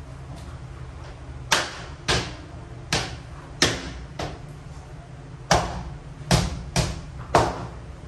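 A mallet knocks about nine times, sharply and unevenly spaced, on laminate floor planks, tapping them so that their joints lock into place.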